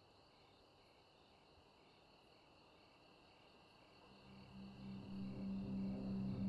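Crickets chirping faintly in a night-time quiet. From about four seconds in, the low, pulsing drone of approaching propeller bombers swells in and grows steadily louder.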